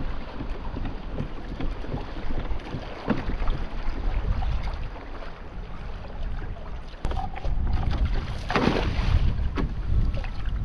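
Wind buffeting the microphone over water sloshing against a kayak's hull, with scattered light knocks and a brief louder rush of noise about eight and a half seconds in.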